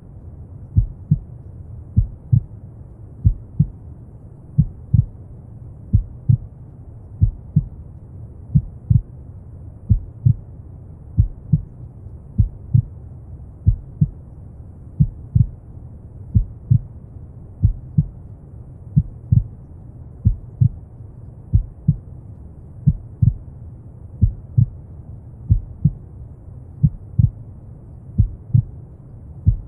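Slow heartbeat: a paired lub-dub thump, low and dull, about every second and a half, over a steady low rush of brown noise.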